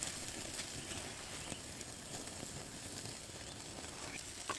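Campfire burning with a faint steady hiss and scattered small crackles.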